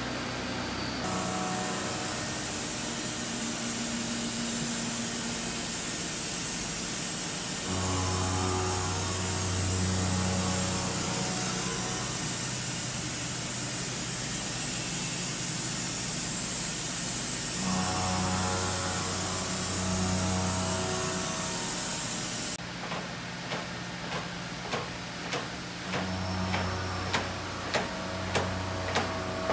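Deckel Maho DMC-60T five-axis machining center running: a steady hiss with a low motor hum that swells and fades several times. In the last part the hiss drops away and a regular clicking of about two a second sets in.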